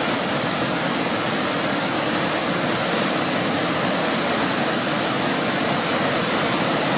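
A tall mountain waterfall rushing steadily, loud and even throughout. It is running high and coming down hard with wet snow and runoff.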